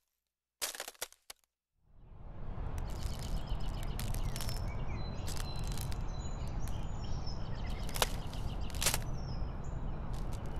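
Ice cracking and crackling. A few sharp cracks come about a second in, then a steady rushing noise fades in carrying scattered crackles and faint bird chirps, with two louder cracks near the end.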